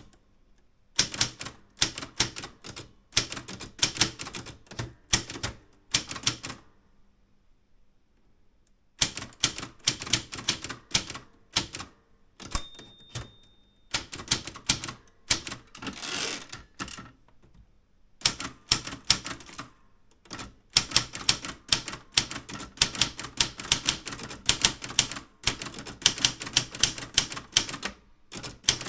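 Typewriter being typed on in runs of rapid keystrokes, with a pause of about two seconds early on. About twelve seconds in there is a single short bell ring, and a few seconds later a longer sliding sound.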